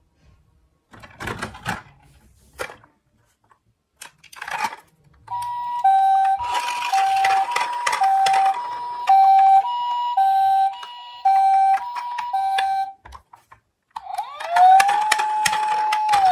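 Toy ambulance's electronic siren playing a two-tone hi-lo pattern, the two notes swapping about twice a second for several seconds, then after a short break a wail that glides up and holds. Before it starts, plastic toy cars clatter briefly as the ambulance is lifted from the box.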